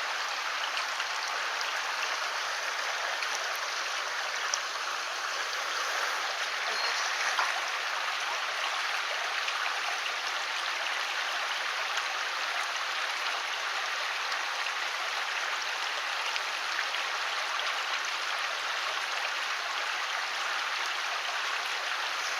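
Mountain stream water rushing, a steady even noise, with a couple of faint clicks.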